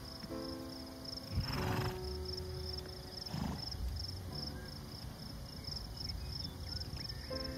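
Insects chirping in a steady, regular high-pitched pulse over soft background music notes. Two short rushes of noise come about a second and a half in and again near three and a half seconds.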